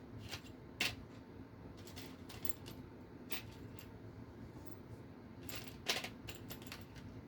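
Small screws and tools being handled during RC car assembly: scattered light metallic clicks and taps, sharpest about a second in and again near six seconds.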